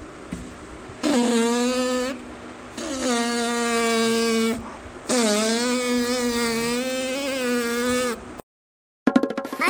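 Cartoon fart sound effect done as a reedy, buzzing pipe tone like a toy pipri whistle: three long held notes, the last the longest and slightly wavering in pitch.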